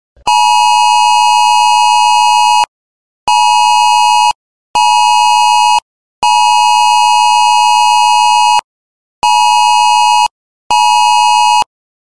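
Electronic alert tone: a loud, buzzy beep at one steady pitch, sounding in a long–short–short pattern that plays twice.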